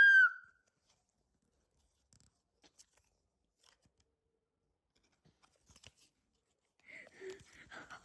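A high, held pitched squeal cuts off about half a second in, then near silence with a few faint ticks; near the end comes faint crinkling, as of a card pack's wrapper being opened.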